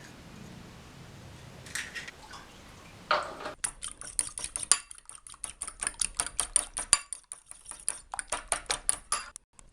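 A fork beating eggs in a bowl: a fast, even run of metal-on-bowl clicks, several a second, starting about three and a half seconds in and stopping just before the end. Before that, only a couple of soft knocks.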